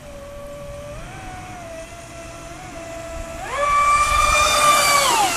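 Traxxas Spartan RC boat's brushless motor, on a 6S LiPo pack, whining at part throttle, stepping up slightly in pitch about a second in. About three and a half seconds in it rises sharply to a loud, high whine at full throttle, holds for about two seconds, then falls off as the throttle is let go near the end.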